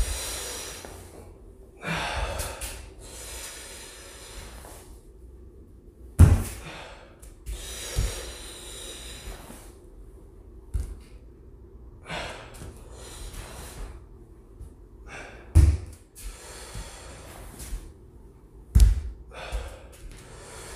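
A man breathing hard during exertion, with loud breaths every couple of seconds. Several dull thuds of bare feet landing on a wooden floor come in between.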